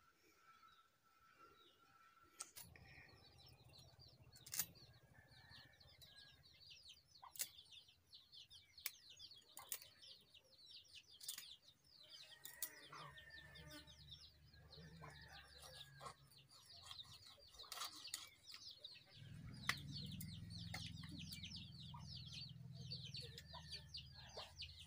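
Faint chickens clucking and birds chirping, with scattered sharp clicks as silver carp are scaled and cut on a floor-mounted blade. A low rumble comes in about twenty seconds in.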